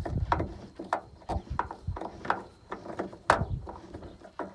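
About ten irregular clicks and knocks of hand tools and loosened bolts being worked in a pickup's door frame at the wing window. The sharpest knock comes a little past three seconds in.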